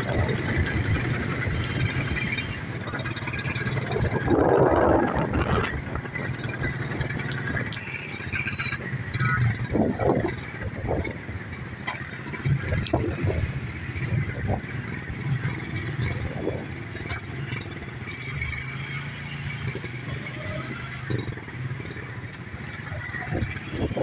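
Motorcycle engine running underneath the rider in slow city traffic, with other motorcycles and cars around; the engine drone is steady, with a louder swell about four seconds in.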